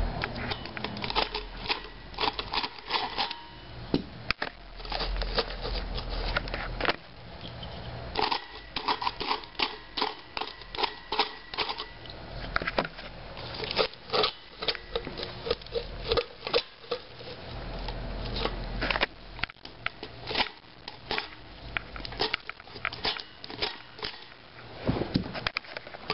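Irregular crackling, snapping and scraping as the glued parts of a burnt FI BTL 18 car-audio subwoofer are pried and torn apart by hand.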